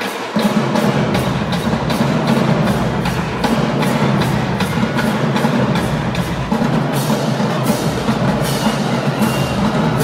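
Marching band playing: percussion keeps a steady crisp beat of about three strikes a second. A little under half a second in, the full band with its low brass comes in and the music gets louder.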